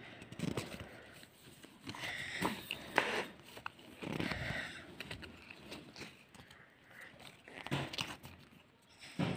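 Pokémon trading cards handled and flipped through by hand, with irregular soft rustles, slides and small clicks of card on card.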